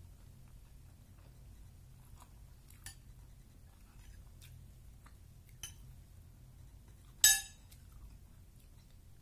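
A metal spoon clinking against a plate while food is scooped: a few light taps, then one loud ringing clink about seven seconds in, over a low steady hum.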